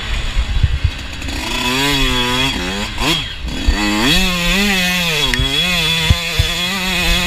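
Dirt bike engine revving up and down as the rider works the throttle. The pitch drops about three seconds in, then climbs again and swings up and down.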